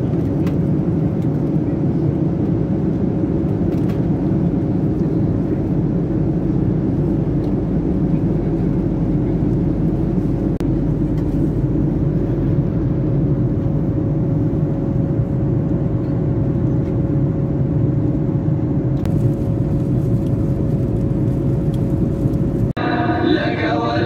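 Steady cabin noise of a jet airliner in flight: an even low rumble of engines and airflow with a faint steady hum over it. Near the end it cuts off abruptly and chanting begins.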